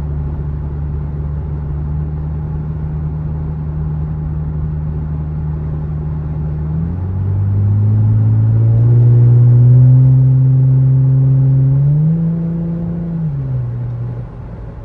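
Lexus engine through a newly fitted aftermarket axle-back exhaust, with a steady low drone while cruising. About seven seconds in it accelerates: the exhaust note climbs in pitch and grows louder, then falls away and quietens near the end.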